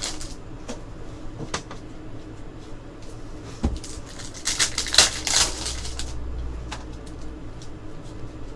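Foil trading-card packs crinkling and cards being handled: scattered light clicks, with a short burst of crinkling about five seconds in.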